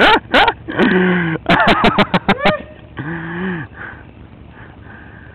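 A man groaning and crying out in pain after a hard fall: short cries at the start and around two seconds in, and two drawn-out moans, about a second in and about three seconds in.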